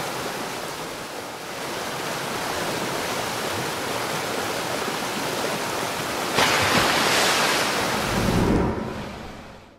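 Rushing river water, a steady wash that swells sharply louder about six seconds in, with a deeper rumble shortly after, then fades out.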